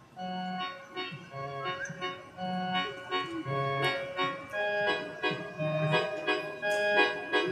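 Music starts suddenly: a keyboard playing held chords over a low bass that steps back and forth between two notes about once a second, with light ticking percussion.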